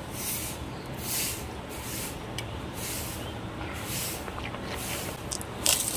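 Steady background hiss and low hum, with soft hissing puffs coming and going every second or so, a faint click midway and a short louder burst near the end.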